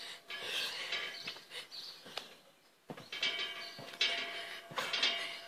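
Trampoline being bounced on: repeated thumps of the mat, each with the metal springs squeaking.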